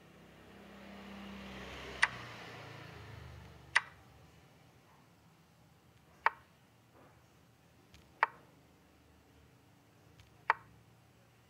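Chess app move sound effects: five short, sharp clicks about two seconds apart, one for each piece moved on a chess.com-style analysis board. A faint hiss swells and fades in the first few seconds.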